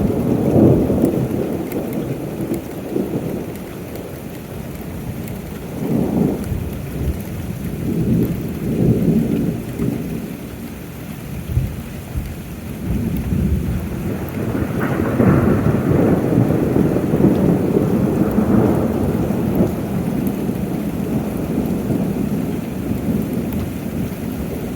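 Thunder over steady rain in a thunderstorm: a sudden loud clap at the start, then rolling rumbles that swell and fade, the longest from about 13 to 20 seconds in.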